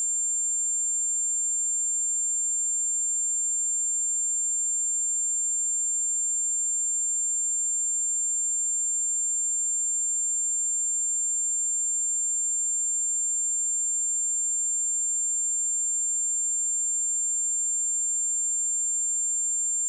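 A pure 7314 Hz sine-wave test tone, a single high-pitched steady whistle held at a constant level.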